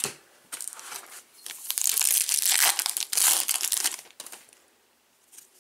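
Foil trading-card pack wrapper crinkling and tearing as it is opened. The dense crinkling starts about half a second in, is loudest in the middle, and dies away about four seconds in.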